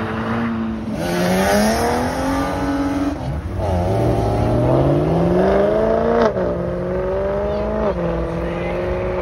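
Car engine accelerating away through the gears: its pitch climbs, drops sharply at an upshift about six seconds in, climbs again and drops at a second shift near eight seconds in.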